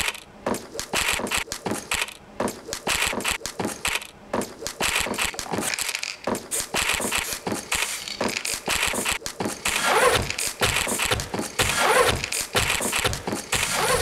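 Dense, rapid clicking, rattling and scraping, joined from about ten seconds in by short chirps that glide up and down in pitch.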